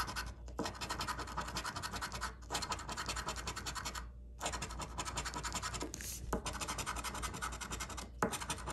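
A coin scraping the latex coating off a scratch-off lottery ticket in fast, repeated back-and-forth strokes. The strokes come in runs of about two seconds, with a brief pause between runs as the coin moves to the next row.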